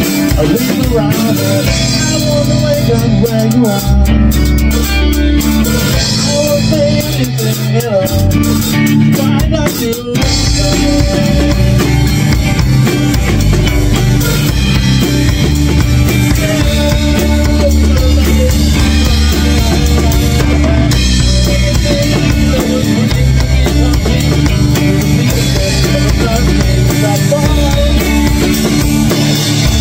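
A live band playing a song: drum kit, acoustic guitar and electric guitar, with a man singing into a microphone. There is a short break about ten seconds in, after which the band comes back in fuller.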